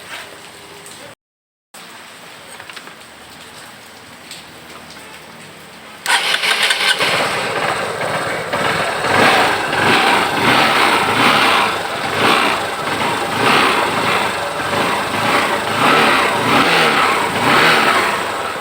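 Honda CB Shine motorcycle's single-cylinder engine starting about six seconds in, then running loud with the revs rising and falling.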